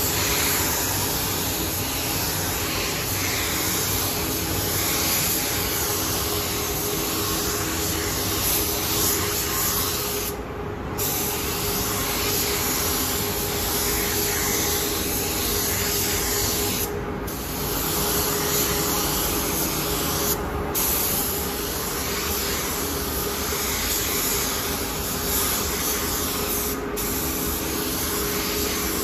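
Air-fed paint spray gun hissing steadily as it sprays paint onto a motorcycle fuel tank. The hiss thins briefly four times, with a steady hum underneath.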